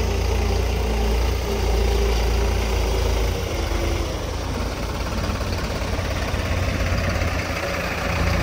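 Diesel engines of two farm tractors running at low speed as the tractors drive past close by. Their low steady note changes about three seconds in as one tractor moves past and the other comes nearer.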